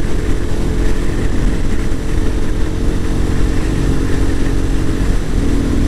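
KTM RC 390's single-cylinder engine running steadily at highway cruising speed, with heavy wind noise on the microphone from a strong crosswind. The engine note shifts slightly near the end.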